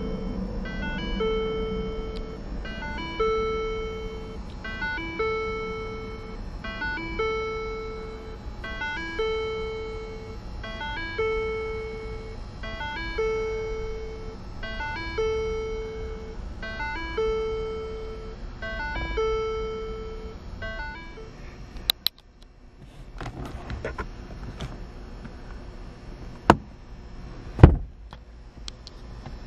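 An electronic chime repeats every two seconds: a quick rising pair of notes, then a held tone. It stops abruptly, followed by a few scattered clicks and one sharp knock near the end, the loudest sound.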